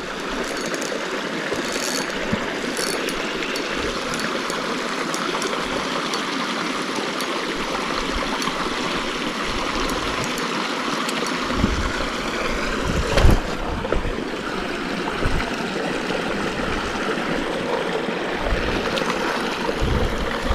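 Creek water rushing steadily over rocks, a constant even wash. A couple of short low bumps come through about twelve and thirteen seconds in.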